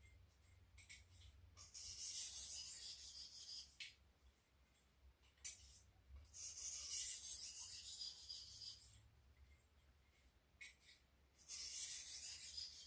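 A 1200-grit sharpening stone stroked very lightly along a boning knife's edge to polish it: three passes of a few seconds each, a high, thin hiss, with a short click between the first two.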